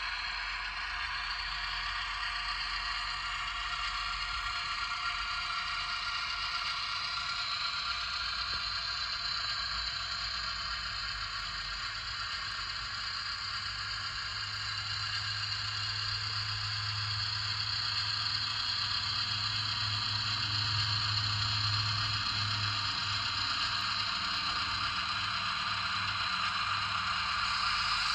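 HO-scale Sperry rail inspection car model running steadily along the track, its small motor and metal wheels on the rails making a continuous mechanical noise that grows a little louder in the second half.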